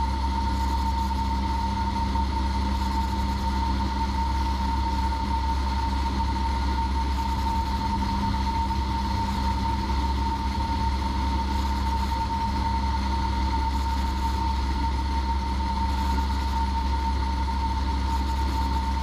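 A Cessna 172P's four-cylinder Lycoming engine and propeller droning steadily in the cockpit during flight, with a thin steady high whine held over the drone.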